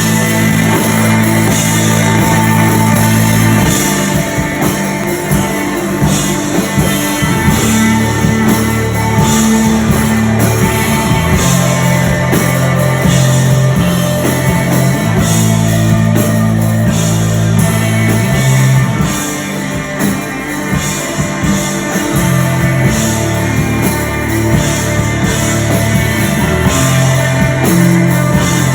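Live rock band playing a heavy instrumental jam: bass guitar holding long, low notes that change every few seconds, guitar playing melodic riffs over it, and a drum kit with cymbals.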